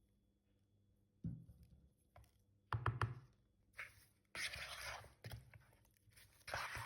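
Kitchen food-preparation sounds: a thud, then a few sharp knocks about three seconds in, followed by two longer rustling, scraping noises.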